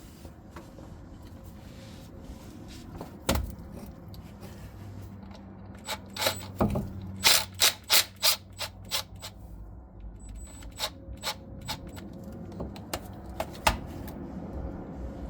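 Sharp clicks and knocks of tools and metal parts being handled, with a quick run of about eight clicks halfway through and scattered single ones after.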